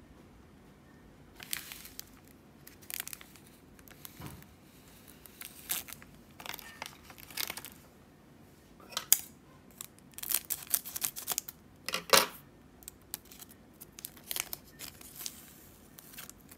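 A clear plastic card wrapper crinkling and being torn open by hand, in a run of short, irregular crackles.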